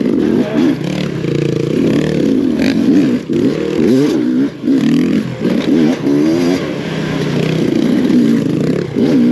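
Enduro dirt bike engine revving up and down again and again as the throttle is opened and shut, its pitch climbing and dropping, with short drops in level about three and four and a half seconds in.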